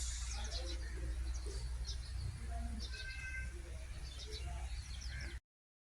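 Small birds chirping repeatedly in short, high calls over a steady low rumble, with a brief steady whistled note about three seconds in; the sound cuts out just before the end.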